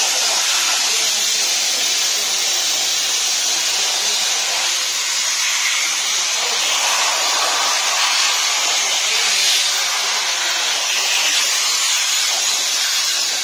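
Compressed-air blow gun hissing steadily as it blasts accumulated brake dust out of the brake shoes and drum.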